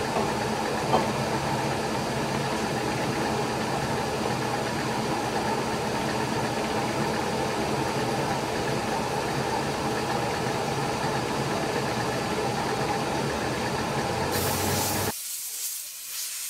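Milling machine running a 6 mm end mill cutting a keyway in a metal plate: a steady machining hum with an even whine. Near the end a compressed-air hiss starts, and the machining sound then stops, leaving the air hiss.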